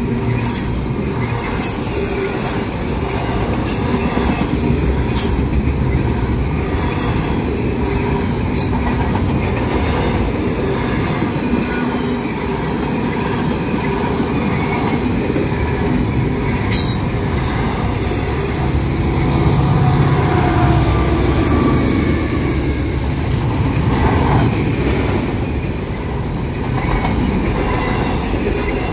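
Double-stack intermodal freight train rolling past close by: a steady rumble of steel wheels on the rails, with irregular sharp clicks and knocks from the wheels and cars.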